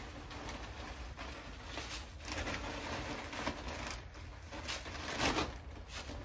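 Wood shavings rustling as they are scooped by hand from a bag of bedding and scattered onto a layer of shavings, with the bag crinkling; several louder rustles come in the middle.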